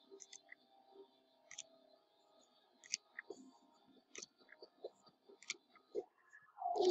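Scattered light clicks and taps of trading cards being handled and sorted, about a dozen spread irregularly, over faint background music that swells louder near the end.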